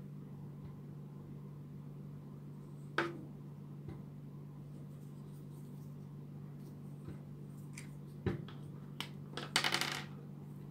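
Sharp clicks and taps of hard plastic from handling a small plastic toy robot and a marker: one click about three seconds in, another near the end followed by a short clatter of clicks. A steady low hum sits under it throughout.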